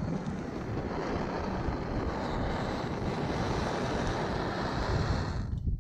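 Bernzomatic propane torch flame hissing steadily while it heats a trailing arm's bushing sleeve to burn out the old rubber; it stops suddenly near the end.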